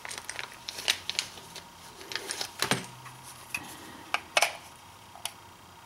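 Scattered sharp clicks and light taps of a polymer rifle magazine and brass cartridges being handled, irregular, with louder clicks about a second in, near three seconds and past four seconds.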